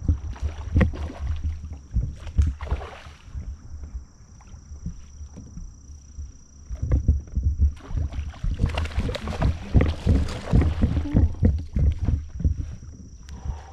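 Knocks of gear against a plastic kayak hull. About seven seconds in, loud splashing begins and lasts several seconds: a hooked bass that has 'train wrecked' a topwater bait thrashing at the surface beside the kayak.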